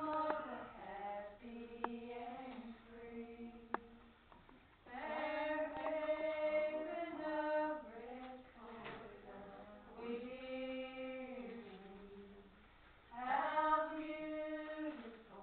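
Slow unaccompanied singing, long held notes in phrases a few seconds long with quieter gaps between. A sharp click sounds about four seconds in.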